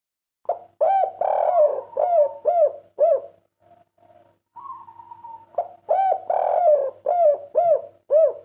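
Spotted dove (derkuku, the 'kuk 3' call type) cooing: two phrases, each a run of short arched coos, with a pause of over a second between them.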